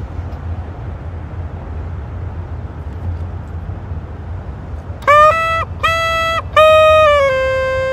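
A steady low outdoor rumble for about five seconds. Then a low clarinet plays three short notes on the same pitch and falls into a slightly lower note that it holds.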